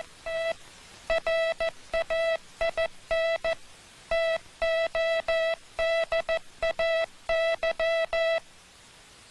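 Morse code sent as a steady beeping tone keyed on and off in short dits and long dahs, ending about eight and a half seconds in. The letter spacing is wrong, so 'we train today' is sent as 'wet rain today'.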